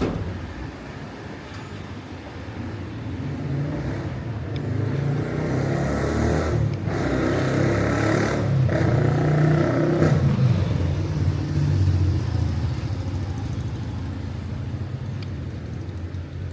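A motor vehicle's engine running, growing louder to a peak about ten seconds in, then fading away.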